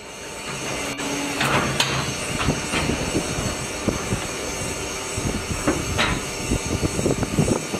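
Automatic hydraulic concrete block molding machine running: a steady machine hum under irregular metallic clattering and knocks, thickest in the last few seconds.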